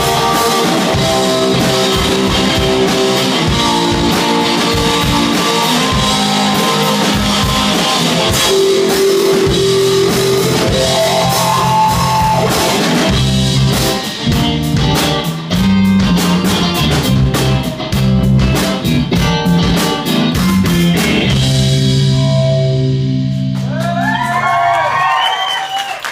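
Live rock band playing loud: electric guitar and bass guitar over a drum kit, with sharp, hard-hit drumming through the second half. Near the end the drums stop and a low held note rings out under wavering high tones as the song finishes.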